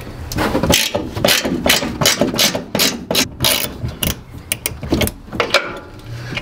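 Hand ratchet wrench clicking in quick, uneven runs as the nuts on a truck's front strut top mount are backed off.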